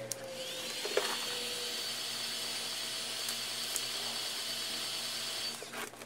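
Heat gun blowing: its fan spins up with a rising whine, runs steadily with a rushing air noise, and shuts off about five and a half seconds in. A single click about a second in.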